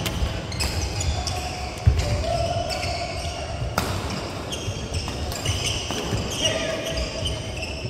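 Badminton doubles rally: sharp racket strikes on the shuttlecock at irregular intervals, with shoe squeaks and footfalls on the wooden court floor between them.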